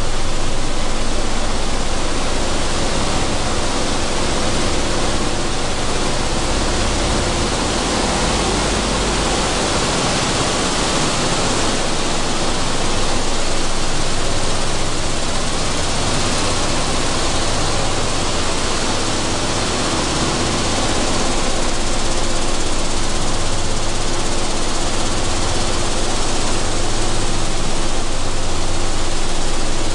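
Sunflower seed hulling machine running: a steady, dense noise with a faint hum.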